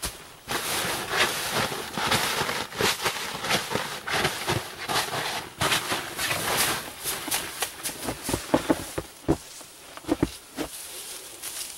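Evergreen boughs rustling and crackling as they are pushed and arranged by hand into a browse bed, with knees shifting on the pile: a continuous rustle of needles and twigs with many small snaps, and a few louder snaps in the later part.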